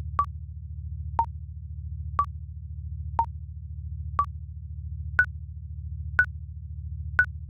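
Electronic countdown-timer sound effect: a short beep once a second, eight in all, the first five alternating between two pitches and the last three higher, over a low pulsing synth drone.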